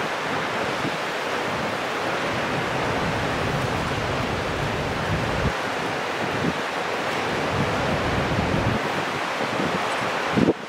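Steady outdoor rushing noise with a fluctuating low rumble, with a short louder burst near the end.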